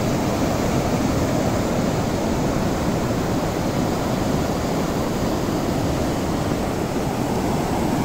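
Fast river water rushing over rock ledges in rapids and a small waterfall: a steady, loud, even rushing noise.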